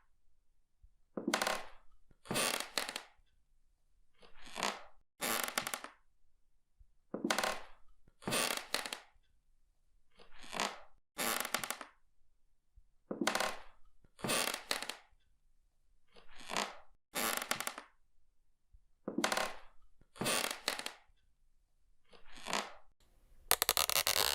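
Wooden parquet floor creaking in short bursts, mostly in pairs, with a pair about every two to three seconds.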